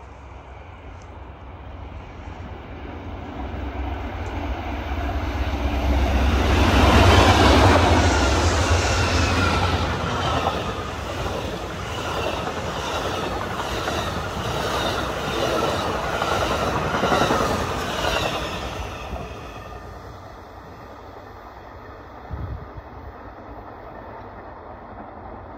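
Amtrak Superliner passenger train passing through at speed. The locomotive's low rumble builds and peaks about seven seconds in, then the bilevel cars go by with a rapid clickety-clack of wheels on the rails. The sound fades away after about twenty seconds as the train recedes.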